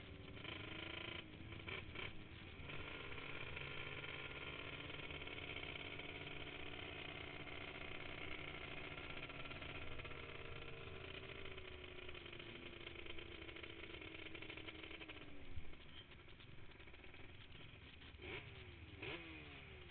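Yamaha Banshee quad's twin-cylinder two-stroke engine running at a steady pitch, then slowly winding down as the quad slows. Two quick throttle blips come near the end.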